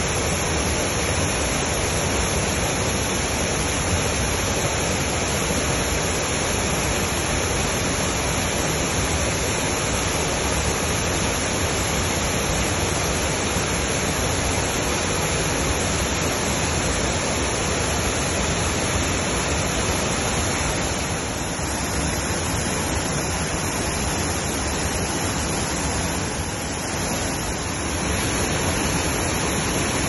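Small waterfall pouring over a low rock ledge close by: a steady, loud rush of falling white water.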